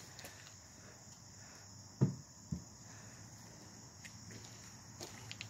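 The two wooden stave doors of a whiskey barrel cabinet being shut, two dull thuds about half a second apart. Under them, a steady high-pitched chirring of insects.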